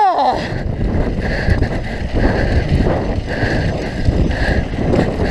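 Mountain bike riding fast down a dirt trail: wind buffeting the camera microphone over the rumble of knobby tyres on packed dirt and the bike rattling over bumps.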